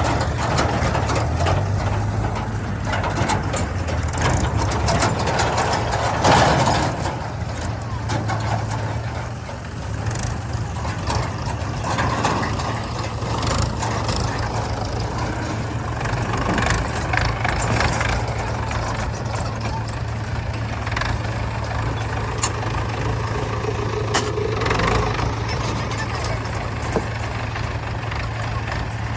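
Heavy diesel engine running steadily at constant speed, with scattered knocks and clatters as a backhoe loader loads mud.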